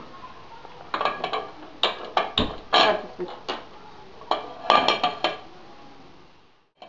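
Steel kitchen utensils and bowls clattering around a dosa griddle on a gas stove: several quick clusters of clinks and knocks, with one heavier thump about two and a half seconds in.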